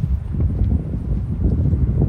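1995 Volkswagen Kombi's air-cooled flat-four engine running, a fast, low, pulsing exhaust note.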